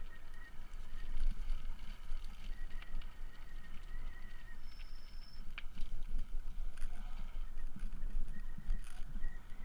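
Electric trike on the move: a fluctuating low rumble of wind on the mounted camera's microphone, with scattered rattles and knocks from the frame over the path. A thin steady high whine from the electric motor drops out and returns.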